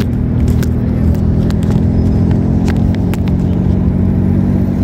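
A Nissan's 1300 cc petrol engine running at a steady pitch, heard from inside the car's cabin while driving. A handful of sharp clicks and knocks come in the first three seconds.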